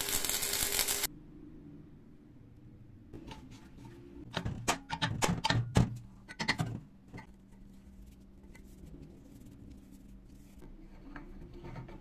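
Electric arc welding hiss that cuts off about a second in, followed after a pause by a run of sharp metallic clicks and clinks from 3 to 7 s as an open-end wrench tightens a threaded steel fitting into a fire-extinguisher tank; a few fainter ticks come near the end.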